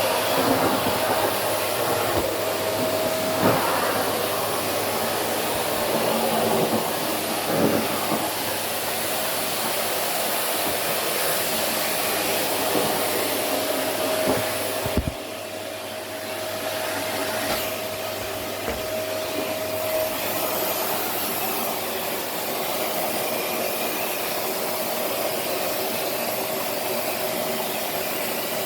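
Vacuum cleaner running steadily as a down jacket is sucked into its nozzle, with a few short knocks. About halfway its sound briefly drops and goes duller, then recovers.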